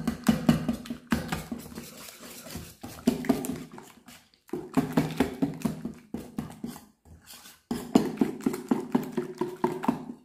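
Wire whisk beating egg into spinach batter in a stainless steel bowl: a fast, rattling run of clicks as the wires strike the bowl, in four bursts with short pauses between them. A low droning tone sounds under the clicking in the same stretches.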